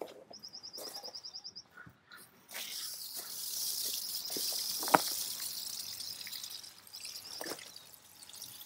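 Garden hose spray wand hissing steadily as it sprays water onto plants, starting about two and a half seconds in, with a single sharp click near the middle.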